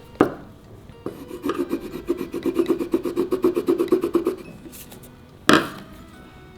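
A fingernail rapidly scratching a scratch-and-sniff sticker to release its scent, about ten quick strokes a second for around three seconds. A short, loud sound follows near the end.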